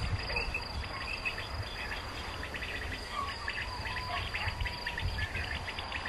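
Crickets trilling steadily, with repeated short quail calls broadcast by electronic bird lures (illegal callers used to attract quail for hunters). A low rumble runs underneath.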